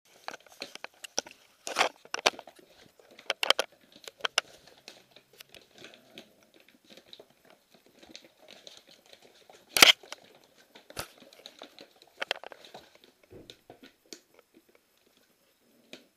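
Plastic bag crinkling and crackling in irregular bursts as a Siberian husky puppy bites and tugs at it, with the sharpest crackle about ten seconds in.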